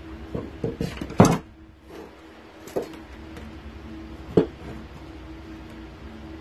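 A steel tomahawk head and its metal-capped handle clunking and knocking on a wooden workbench as it is handled and set down. There is a quick cluster of knocks with the loudest about a second in, then two single knocks, over a steady low hum.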